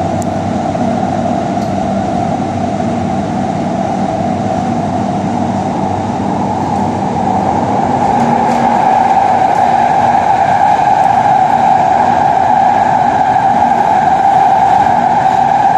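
Underground metro train running through a tunnel: a steady rumble with a loud mid-pitched rail noise that grows louder and harsher about halfway through.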